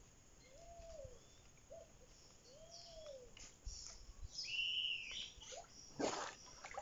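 Birds calling: a low, arched note three times in the first three seconds, then higher chirping calls. Near the end comes a burst of water splashing as a swimmer rises out of the water.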